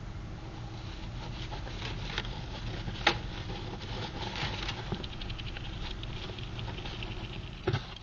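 Pet gerbil scrabbling and scratching at close range: light scattered clicks and rustles over a low steady hum, with one sharp click about three seconds in and a knock near the end.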